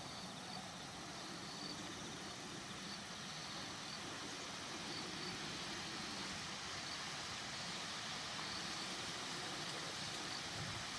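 Steady outdoor hum of distant road traffic that swells slightly, with faint, irregular insect chirps high above it.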